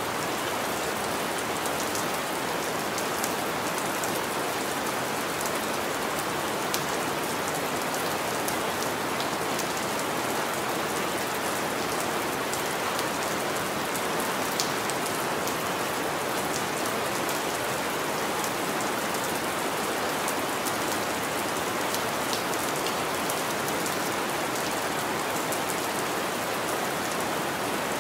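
Steady rain falling, an even hiss with scattered sharp ticks of individual drops striking a surface.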